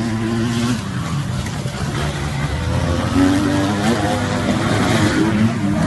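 Motocross bikes racing on a dirt track, engines revving with pitch rising and falling as riders accelerate and shift.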